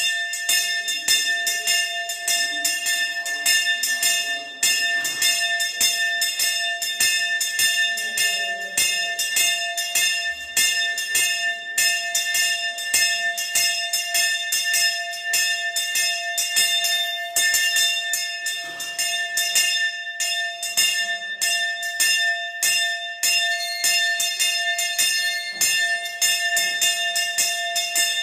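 Brass temple hand bell (ghanta) rung continuously during a ritual offering, its clapper striking rapidly and without pause over steady, overlapping ringing tones.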